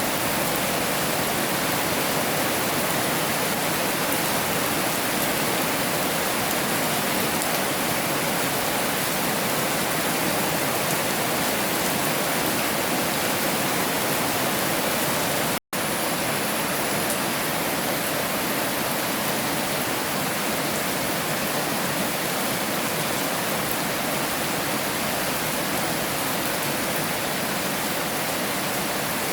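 Heavy rain falling in a steady, even hiss. The sound cuts out for an instant a little past halfway, then carries on as before.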